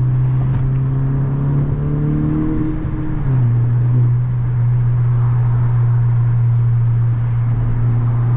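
Honda Civic Si's turbocharged four-cylinder engine running steadily while driving, its note dropping slightly about three seconds in.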